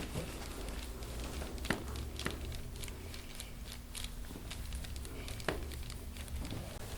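Soft crinkling and rustling from hands-on chiropractic soft-tissue work on the patient, with a few faint clicks scattered through it over a low steady hum.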